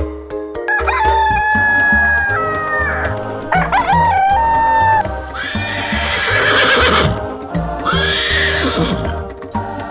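A rooster crowing four times in a row, each crow a long drawn-out call, over steady background music.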